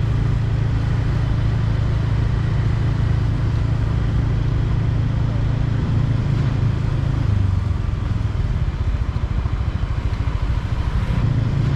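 Heavy truck engine idling with a steady low rumble. The rumble gets rougher and less even about seven seconds in, then steadies again near the end.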